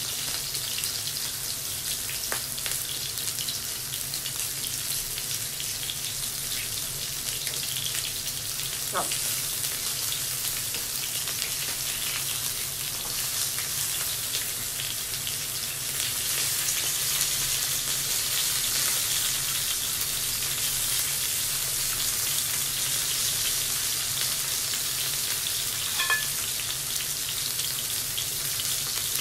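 Meat and vegetables sizzling on an electric tabletop grill plate: a steady frying hiss that grows a little louder just past halfway, with a few faint clicks.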